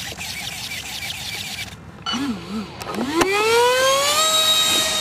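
Electric RC jet's ducted-fan motor spooling up: a whine that wavers at first, then rises steadily in pitch for about a second and holds high and steady before cutting off abruptly near the end. A rapid rhythmic ticking comes before it in the first second and a half.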